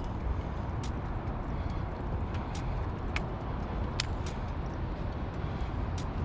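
Steady low rumble of city outdoor background noise, with scattered short, sharp high-pitched ticks through it.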